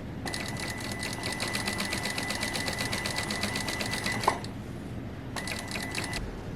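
Electric sewing machine stitching with a rapid, even rhythm and a steady motor whine for about four seconds. It stops with a sharp click, then runs again briefly near the end.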